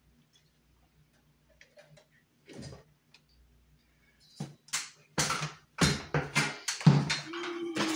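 Hand work on a ceiling light mounting: a few faint ticks and clicks, then from about halfway a run of loud clattering and rustling handling noises.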